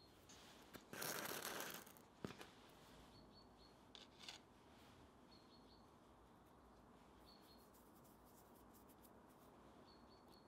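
Near silence: quiet room tone, broken about a second in by one short dry rustle and then a sharp tap, as a hand handles a plastic cup of molybdenum disulfide powder.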